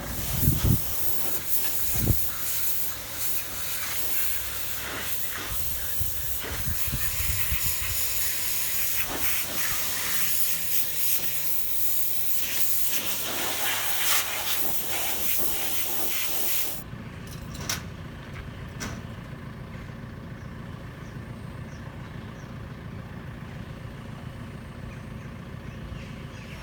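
Pressure washer jet spraying the stripped tractor axle casing, a steady loud hiss with scattered knocks. It cuts off suddenly about sixteen seconds in, leaving a steady low engine hum.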